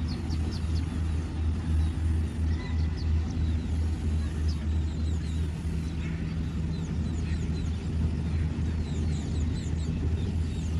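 A harvesting machine's engine running at a steady, even drone, with short high chirps sounding over it.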